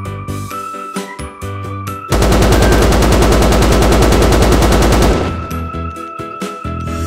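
Cheerful background music, broken about two seconds in by some three seconds of rapid machine-gun fire, a sound effect that is the loudest thing here, before the music carries on alone.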